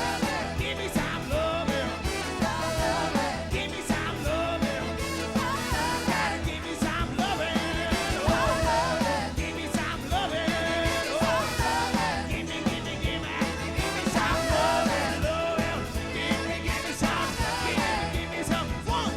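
Live soul band playing, with a singer's wavering melody over a steady drum beat and full band.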